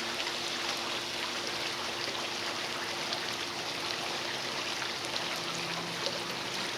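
Steady trickling hiss of cola being poured over pork ribs on a smoker, with a faint steady hum underneath.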